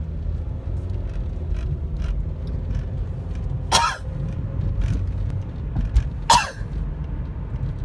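A woman coughs twice, two short single coughs about two and a half seconds apart, over a steady low rumble.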